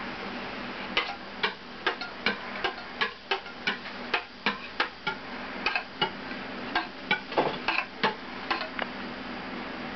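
Metal scraper and spatula tapping and scraping on a granite countertop as melted chocolate is spread and gathered to temper it: sharp, irregular clicks about two to three a second, starting about a second in, over a steady low hum.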